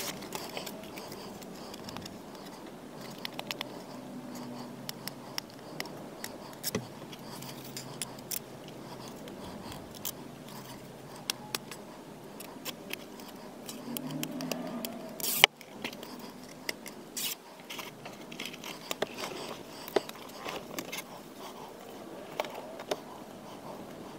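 Hands working on a car's interior door trim: scattered small clicks, taps and scrapes of trim pieces being handled and pressed into place, with one sharp click about fifteen seconds in.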